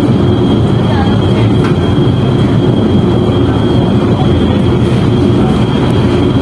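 Light-rail train running: a steady rumble with a thin, steady high whine over it.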